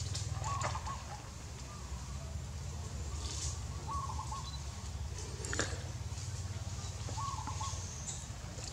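Outdoor ambience over a steady low rumble, with three short animal calls a few seconds apart and one sharp click about halfway.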